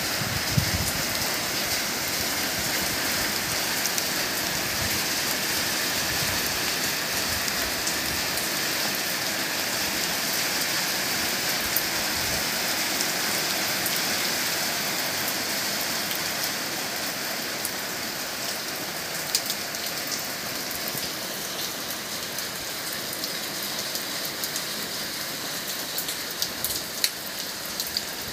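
Steady rain falling, an even hiss with scattered sharp drop ticks, easing a little in the second half.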